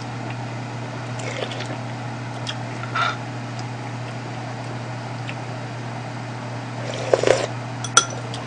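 A person eating mushroom-tofu stew from a spoon: quiet chewing and slurping mouth sounds, with a louder slurp about seven seconds in and a light click just after. A steady low hum runs underneath.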